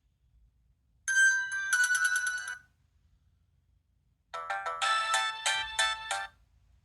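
Nokia 6230i mobile phone playing two short polyphonic ringtone snippets in turn: a melody of about a second and a half, a pause, then a second, fuller melody of about two seconds.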